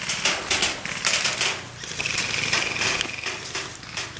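Airsoft BB guns firing: a quick, irregular run of sharp shots, several a second.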